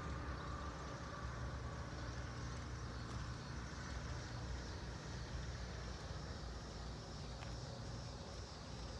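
Single-engine propeller plane (a Van's RV-9A) at full power on its takeoff run. It is heard as a distant, steady low drone, and a faint higher engine tone fades out about two seconds in.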